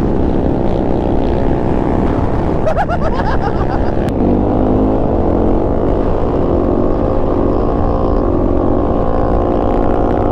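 Dirt bike engine running steadily at speed, heard close from the rider's position. About three seconds in its pitch briefly rises.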